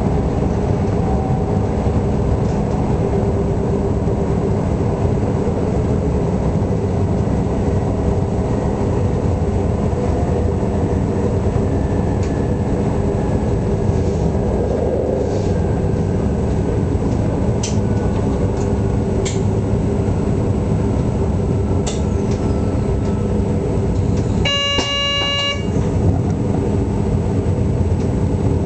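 Electric train running along the line, heard from the driver's cab: a steady low rumble of wheels on rail and running gear. Near the end a horn sounds once, a single tone lasting about a second.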